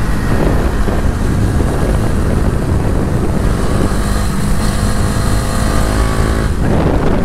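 KTM Duke 250's single-cylinder engine running under way through an aftermarket exhaust with the dB killer removed, mixed with wind on the microphone. The engine note climbs about halfway through and dips briefly near the end.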